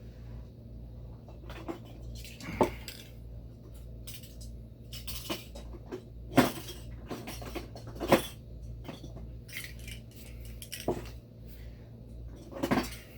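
Model paint jars and cans clinking and knocking against each other as they are picked up and set down, in irregular sharp clinks, over a steady low hum.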